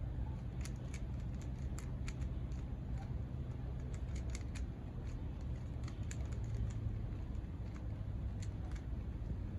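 Plastic puzzle cube being turned fast by hand: quick, irregular clicks of the layers snapping round, at times several in a second.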